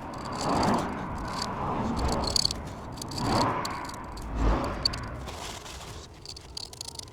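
Small metal scraping and rubbing on a diesel heater's glow plug, scratched gently by hand to clean it, in several uneven strokes with faint clinks.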